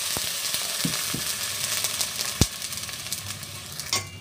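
Chicken pieces sizzling in hot oil with garlic and ginger in a cooking pot, the hiss slowly easing. A few sharp knocks come in the first half of the sizzle and some clatter near the end.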